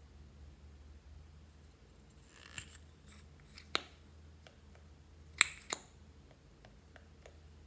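Lipstick tubes and caps handled, giving a scatter of sharp plastic-and-metal clicks, the loudest a pair about five and a half seconds in.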